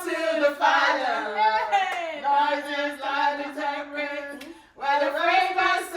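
A small group singing a gospel chorus together without instruments, with a few hand claps. The singing breaks briefly near the end for a breath before the next line.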